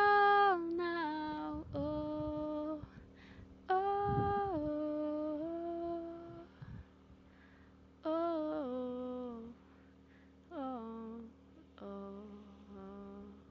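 A woman humming a slow wordless melody in short phrases, each a few held notes stepping down in pitch, with short pauses between them and faint steady tones held underneath.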